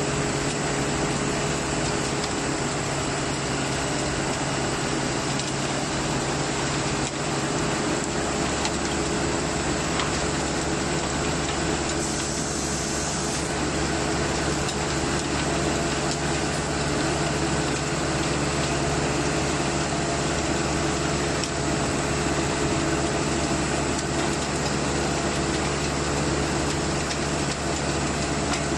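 Diesel engine of a 3.8 m³ self-loading concrete mixer truck running steadily, with a constant machine hum that deepens a little about eight seconds in.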